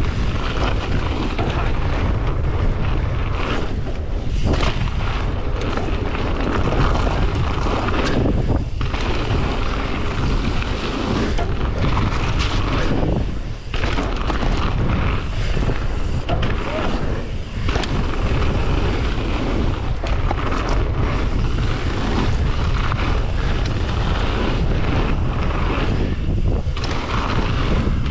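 Wind buffeting the microphone of a camera on a mountain bike riding fast down a loose gravel trail, with the tyres crunching over the stones. A steady, dense rush, heaviest in the low end, with two brief dips about halfway through.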